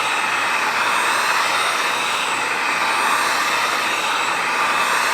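Heat gun running steadily with an even rushing whoosh, blowing hot air over a freshly fitted tablet touchscreen to set its adhesive.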